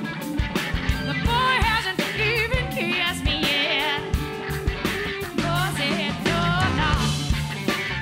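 Live band playing a bluesy rock song: drums and electric bass keep a steady groove under a wavering lead melody line.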